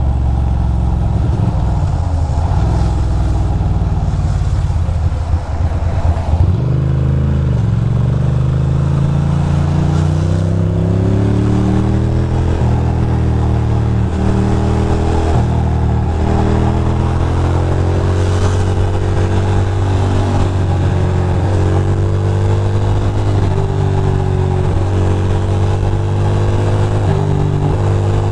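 Ducati Monster 620's air-cooled V-twin under way: it drops back at first, then climbs in pitch from about six seconds in, with several quick dips as it is shifted up. It then runs at a steady speed with small throttle changes.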